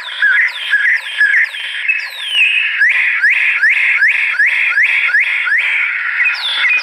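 Recorded bird calls played through the small loudspeaker of a racing-pigeon training sound-effect board: repeated short chirps and falling whistles, with a quick run of rising chirps, about three a second, in the middle.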